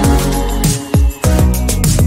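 Electronic background music with a driving beat and deep bass notes that drop in pitch with each hit.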